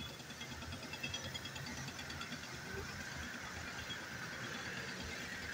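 Diesel engine of a tracked hydraulic excavator running steadily, with a hiss that gets a little louder about halfway through.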